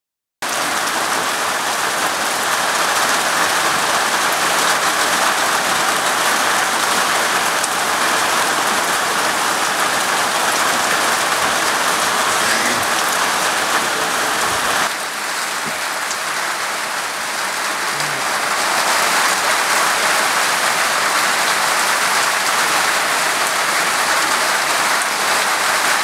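Steady rain falling: an even, dense hiss that dips briefly about halfway through.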